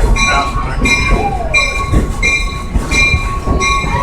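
A bell ringing in a steady rhythm, about three strokes every two seconds, over the low rumble of a moving open-air excursion train car.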